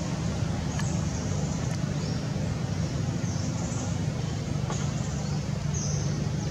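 Steady low rumbling background noise with an even hiss, and short faint high chirps repeating every second or so.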